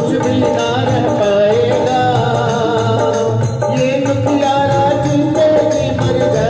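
Live Hindu devotional bhajan: a man singing a wavering melody into a microphone, with drum accompaniment keeping a steady beat.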